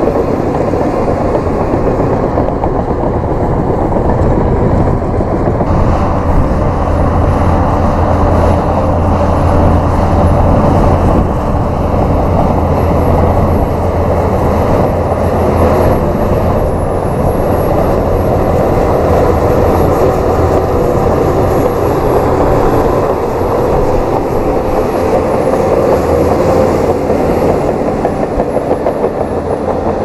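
Shantui crawler bulldozers running steadily under load as they push earth: a loud, unbroken rumble of diesel engines and rolling steel tracks.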